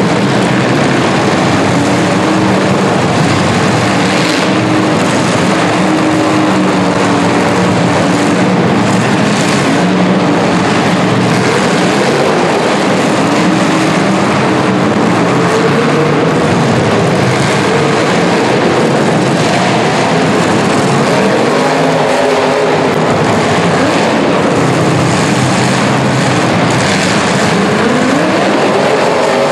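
Engines of several 1980s full-size demolition derby cars running and revving at once in a loud, constant din, their pitches rising and falling as the drivers work the throttles.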